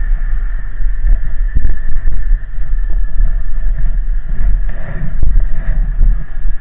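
Arctic Cat Sno Pro 440 snowmobile's two-stroke engine running steadily, with a loud, uneven low rumble and a faint steady whine above it.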